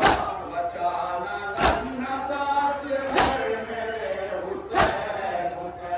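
A group of men chanting a Muharram nauha (lament) together. Four loud, sharp strikes fall in unison about a second and a half apart, keeping time with the chant: the matam, chest-beating by the mourners.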